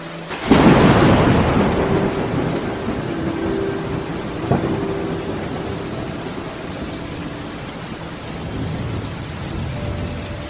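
A loud thunderclap about half a second in that rumbles away slowly over several seconds, over steady rain. A brief sharp crack comes about four and a half seconds in.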